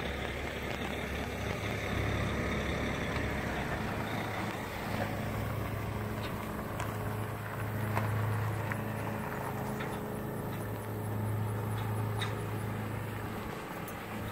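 Truck engine running steadily at low speed as the rig tows a fifth-wheel RV and a flatbed dolly trailer over gravel. Scattered sharp clicks of gravel under the tyres sound over the low hum.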